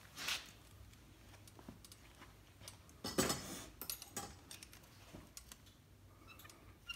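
Small metal screws and a hex-bit screwdriver clicking and clinking on the cam module of an Obsession compound bow as the module is reset to shorten the draw length. There are scattered light clicks, a short rattle about a third of a second in, and a louder burst of clinking about three seconds in.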